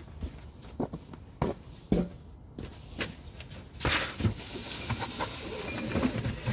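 Scattered knocks and clicks of hands-on work on a car's front suspension and drive shaft, a few single hits at first, then busier handling noise with small knocks from about four seconds in.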